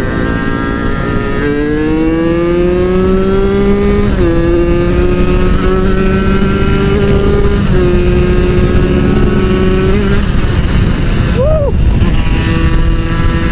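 Yamaha Force 1 underbone's two-stroke engine under hard acceleration, its pitch climbing through the gears with sharp drops at upshifts about four and eight seconds in. It eases off around ten seconds in, then holds a steady high-speed note, with wind rushing over the microphone.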